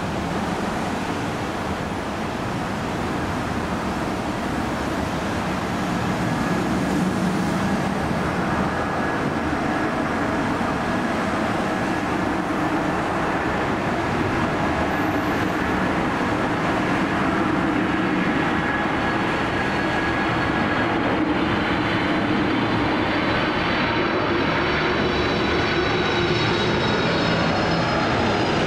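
Boeing 747-400 freighter on approach with its gear down, the steady rumble of its four jet engines growing louder as it closes in and passes nearly overhead. A high engine whine comes in over the last several seconds.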